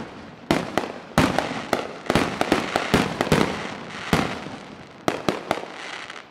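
Fireworks going off: an uneven run of sharp bangs and pops, some close together in quick clusters, each trailing off into crackle.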